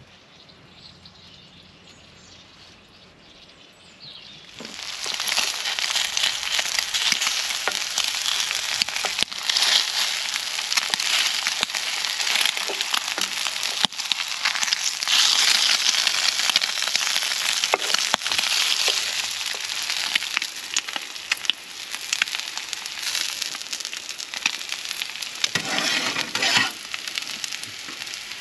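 Food frying in a hot pan, a dense, crackling sizzle that starts suddenly about four seconds in and carries on steadily after that.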